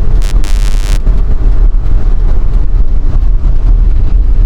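Strong wind buffeting the microphone over the steady low rumble of a vehicle on the move, with a brief loud hiss lasting under a second just after the start.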